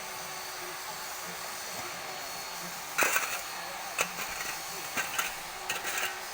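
Construction work noise: a steady background hiss, then from about halfway through a series of sharp knocks or strikes, roughly one a second.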